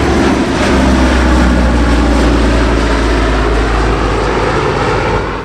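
Steady aircraft engine drone with a strong low hum, cutting off abruptly near the end.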